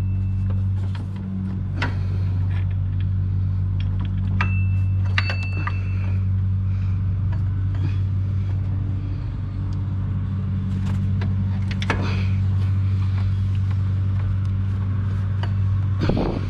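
Scattered metal clinks and knocks, a few with a brief ring, as a replacement alternator is worked into its mounting bracket in a Land Rover Discovery 3 engine bay, over a steady low hum.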